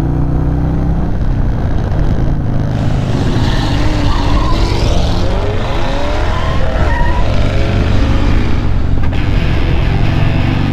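Motorcycles riding in a group, heard with wind rush on a camera mounted on one of the bikes. The engine notes rise and fall several times in the middle. Background music plays near the start and again near the end.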